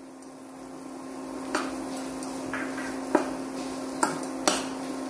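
Metal slotted spatula stirring and scraping in a stainless steel frying pan, with about five sharp clinks against the pan, over the faint sizzle of spices frying in oil. A steady low hum runs underneath.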